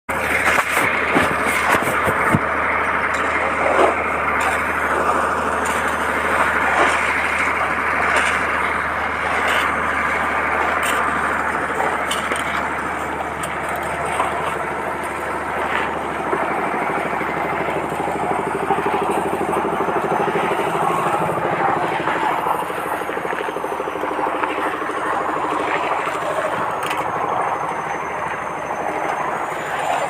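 An engine running steadily, with scattered knocks and clatter over it.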